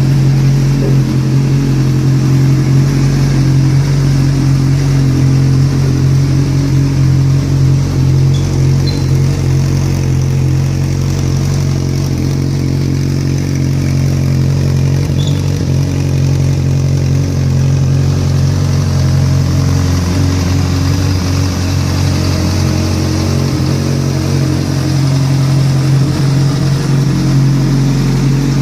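Honda CBR motorcycle engine idling steadily with a deep, even exhaust note, sounding healthy.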